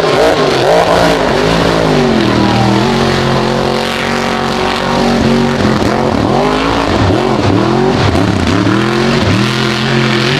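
Mud-bog truck engine revving hard as the truck drives through deep mud, its pitch climbing and dropping again and again, with a steadier stretch of held revs in the middle.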